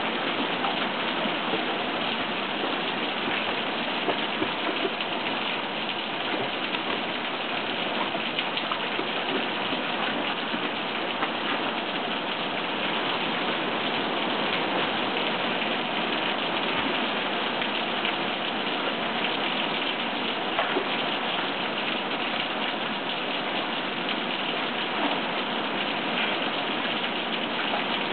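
Steady rain falling, an even, continuous hiss of drops.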